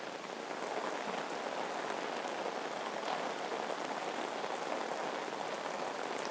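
Heavy tropical rain falling steadily, an even hiss of rain on the ground and surrounding surfaces.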